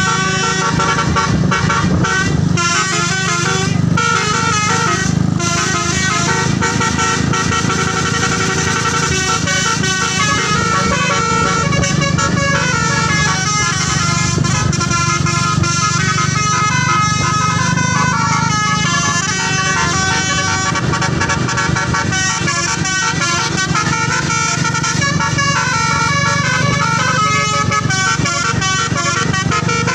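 Indonesian bus telolet horn: a multi-tone musical air horn playing a quick melody of stepped notes that never pauses, over the low hum of a bus engine.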